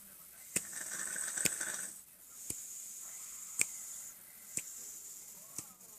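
A sleeping person snoring: two long, airy, hissing breaths in the first four seconds, then a quieter stretch. Sharp clicks sound about once a second throughout.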